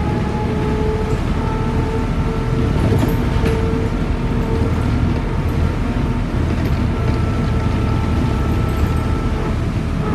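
Škoda 14Tr08/6 trolleybus under way, heard from inside the cab: the electric traction drive gives a few steady whining tones over an even rumble of tyres and road.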